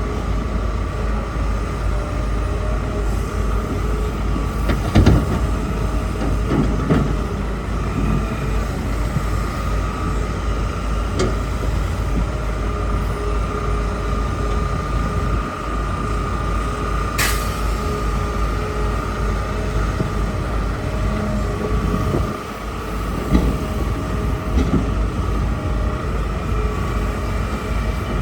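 Hitachi excavator running, its diesel engine rumbling with a steady hydraulic whine, with a few sharp knocks as the machine works.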